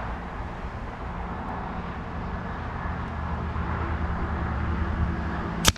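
A single suppressed shot from a .25 calibre Daystate Delta Wolf PCP air rifle fitted with a Huma moderator, a sharp crack near the end, over a steady background rumble.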